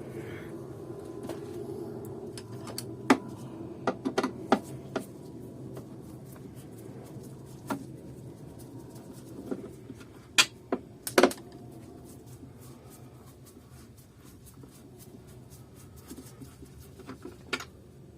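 Scattered clicks, taps and knocks of hard plastic parts and tools being handled while a Kärcher DS5500 vacuum cleaner is being taken apart, with the sharpest knocks about three seconds in and again around ten to eleven seconds in.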